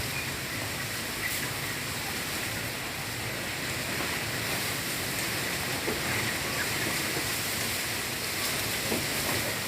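Steady, even rushing noise of stormy weather, strong wind with the hiss of rain, with a few faint ticks scattered through it.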